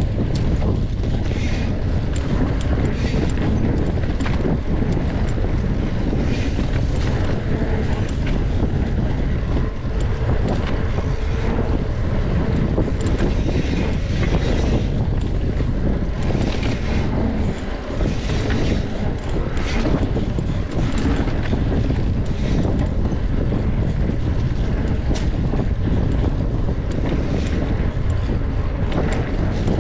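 Wind buffeting a camera microphone on a bicycle ridden fast on a trail: a steady rumbling rush, with scattered rattles and clicks throughout.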